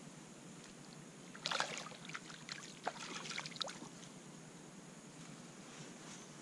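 Water splashing as a released peacock bass kicks away from the angler's hands: a burst of splashes and drips about a second and a half in, lasting a couple of seconds, then quiet.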